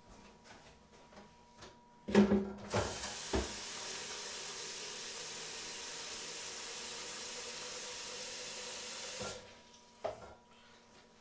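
Kitchen tap running steadily into a jug for about six and a half seconds, then shut off abruptly. A few knocks come just before it starts, and one more shortly after it stops.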